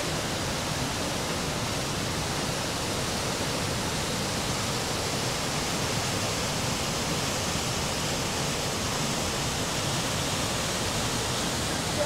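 Steady, unbroken rush of a large waterfall, the Mekong pouring over the Khone Phapheng falls.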